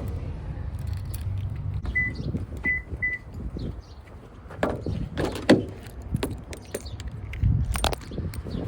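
Three short electronic beeps, then several knocks and thumps, with a low vehicle rumble underneath.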